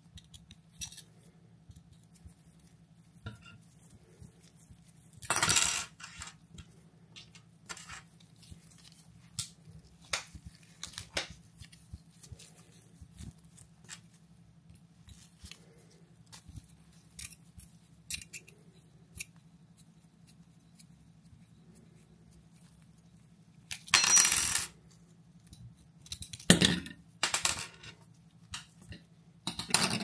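Small metal parts of a SRAM Eagle GX rear derailleur and a hex key being handled and set down on a workbench during disassembly: scattered light clicks, with two louder metallic clinks, one about five seconds in and one about three quarters of the way through, and a few sharp clicks near the end.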